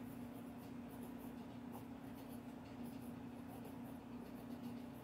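Fountain pen with a fine steel nib (Pilot Kakuno) scratching faintly across sketch-pad paper in short strokes as words are written, over a steady low hum.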